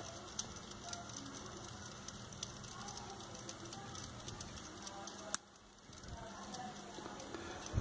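Faint scattered clicks and light crackle from hands turning a heavy plate on its fan-bearing axle, with one sharper click about five seconds in.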